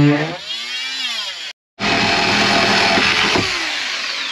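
A corded power tool cutting into a bus's ceiling panel, its motor pitch rising and falling. After a sudden brief break, a rougher, noisier cutting sound follows.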